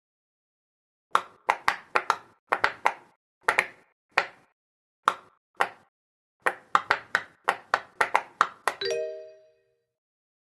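Pop-it fidget toy bubbles being pressed: a quick series of sharp pops in irregular bursts, about two dozen in all. Near the end a short ringing chime sounds.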